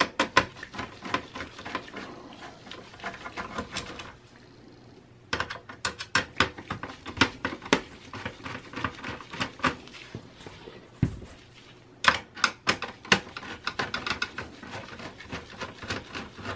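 Phillips screwdriver backing out the screws of a desktop PC's CPU heatsink: fast, irregular clicking and ticking of metal against metal, in three runs with short pauses. A single low knock comes about eleven seconds in.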